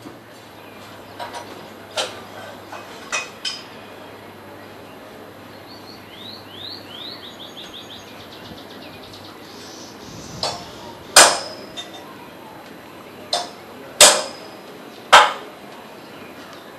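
A series of sharp knocks or clicks, the loudest three coming in the last third, over a faint steady low hum. Midway there is a quick run of short rising chirps, about four or five a second.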